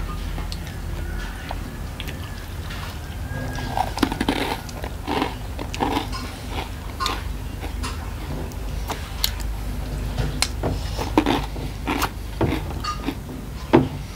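Close-up eating sounds: a person chewing and crunching crisp food, with many short, irregular crunches and smacks.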